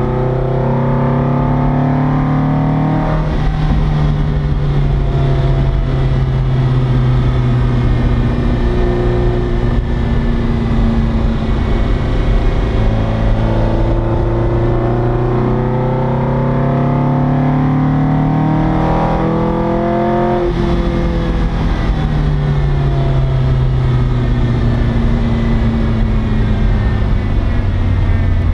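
Racing car engine running at high revs, its pitch climbing and falling in long sweeps, with abrupt breaks about three seconds in and again about twenty seconds in.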